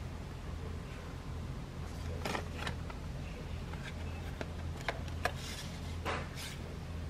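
Light clicks and rustles of tableware being handled over a low steady hum, with two sharper clicks about five seconds in.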